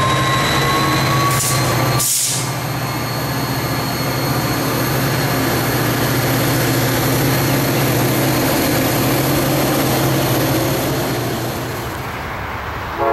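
Tri-Rail F40PH diesel locomotive running steadily as it moves the train along, with a whine that rises slowly in pitch over the first few seconds. A sharp hiss of air, like an air-brake release, cuts in about two seconds in.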